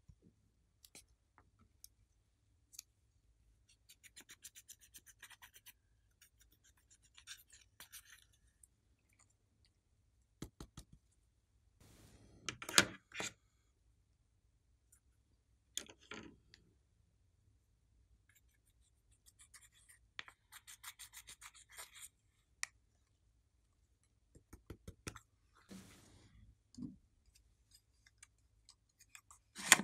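Hands handling an eyeshadow palette case and a strawberry-shaped container: scattered small clicks and taps and short stretches of fine rubbing, with quiet gaps between. The loudest knocks come about 13 and 16 seconds in.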